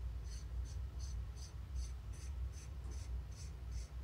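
Small metal collar being screwed by hand into the threaded hole of a lathe boring and facing head casting: a faint, even scratching of the threads, about three strokes a second.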